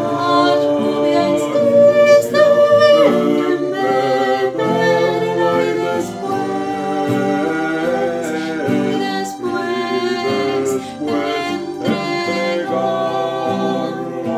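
A song sung by a woman's and a man's voice over strummed acoustic guitar, with a few sharp percussive taps.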